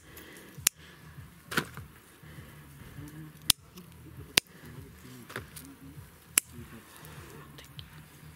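Household scissors snipping through tomato stems to cut off whole clusters: about six sharp snips, spaced irregularly.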